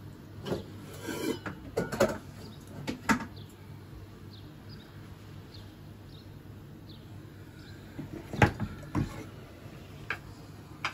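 Cookware being handled in a kitchen: scattered knocks and clinks of pots and a frying pan, with two sharp knocks about eight and a half and nine seconds in.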